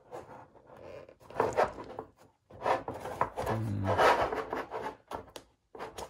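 A round display base being worked out of its tight-fitting cutout in a presentation case insert: irregular rubbing and scraping strokes, with a short squeak about three and a half seconds in.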